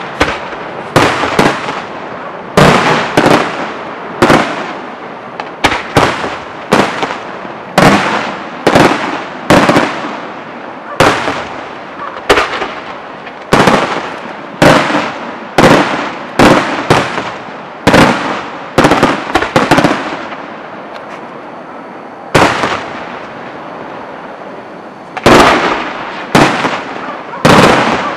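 Aerial firework shells bursting in a rapid series of sharp bangs, one or two a second, each trailing off after the blast. The bangs pause for a few seconds about three-quarters of the way through, then start again in a quick cluster near the end.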